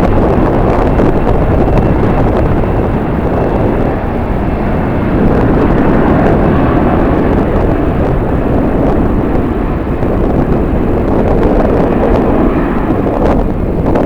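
Jet airliner engine noise mixed with strong wind buffeting the microphone, a loud steady rush throughout.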